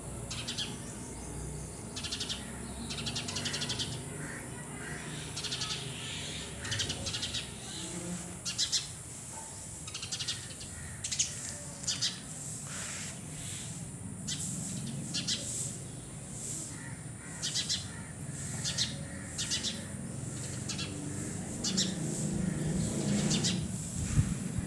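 Short, high bird-like chirps repeating at irregular intervals.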